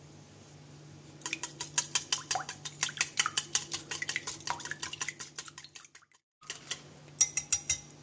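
Small metal balloon whisk beating a thin egg and soy-drink mixture in a glass bowl, the wires clicking quickly and evenly against the glass. It starts about a second in, breaks off for a moment around six seconds, and comes back briefly near the end.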